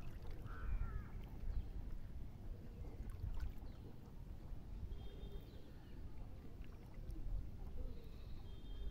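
Water sloshing and trickling around a man wading waist-deep as he hauls in a cast net by hand, over a steady low rumble. A short bird call sounds about half a second in.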